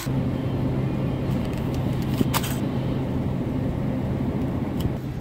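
Steady low hum and rumble of supermarket background noise, with one short click or crinkle about two and a half seconds in.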